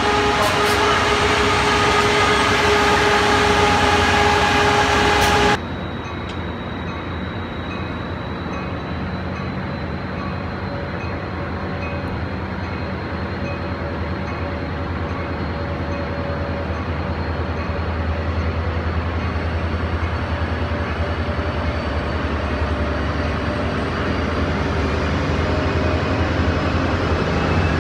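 Amtrak Pacific Surfliner train moving through the station: the diesel locomotive running with several steady tones over a rumble. About five seconds in the level drops suddenly to a lower, steady rumble of the passenger cars rolling on the rails, which swells slightly near the end.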